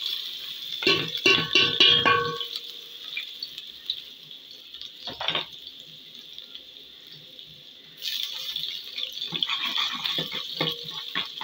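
Chopped onions hitting hot oil in an aluminium pot and sizzling, with knocks and ringing from the metal pot as they are tipped in about a second in. The sizzle carries on more quietly, then grows louder about eight seconds in, with the clicks and scrapes of a spoon stirring against the pot.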